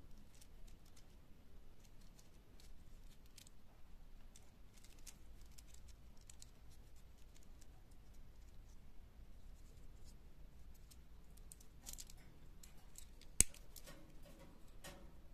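Small plastic Kinder Surprise toy car parts being handled and pressed together: light scattered clicks and taps, with one sharp click near the end.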